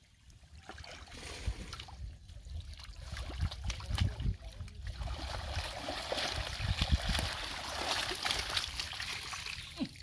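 Shallow muddy water splashing and sloshing as a bamboo-framed fishing net is pushed through it by a wading man, with scattered dull thumps; the splashing grows louder about halfway through.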